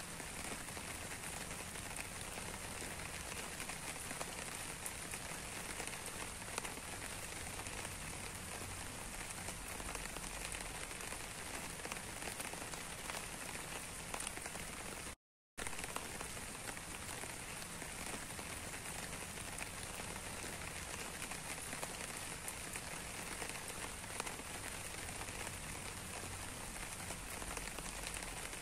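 Steady rain, an even hiss made up of many small drop ticks. About halfway through it cuts out to silence for about half a second, then carries on unchanged.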